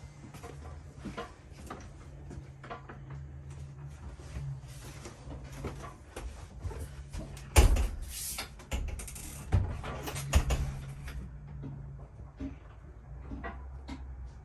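Scattered clicks and knocks with a few loud thumps around the middle, typical of a door and cabinet doors being opened and closed inside a travel trailer, over a steady low hum.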